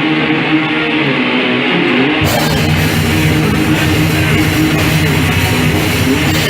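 Black metal band playing live: a distorted electric guitar riff holds sustained notes, then about two seconds in the rest of the band crashes in and the full band plays on.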